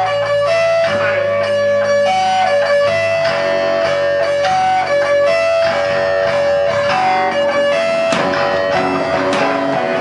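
Live rock band playing: an electric guitar riff of held notes that switch pitch about every half second, over drums. The drums and cymbals hit harder from about eight seconds in.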